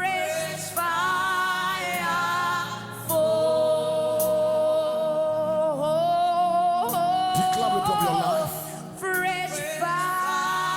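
Gospel worship singing: a voice holds long, wavering notes over a steady sustained accompaniment. The longest note is held from about three seconds in to about six seconds in.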